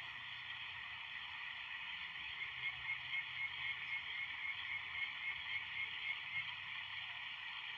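A steady night chorus of small calling animals, with a run of short high chirps, about three a second, from about two seconds in until past six seconds.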